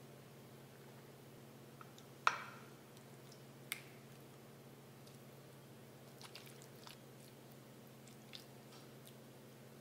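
Quiet food-prep sounds of lasagna being layered: soft, wet squishing of tomato sauce and filling being spread with a spoon, with one sharp clink of the spoon against the ceramic baking dish about two seconds in and a few small clicks later, over a steady low hum.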